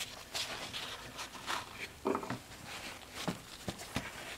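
Paper towels rustling and rubbing as gloved hands wipe up spilled engine oil, faint, with a few light taps from handling the parts.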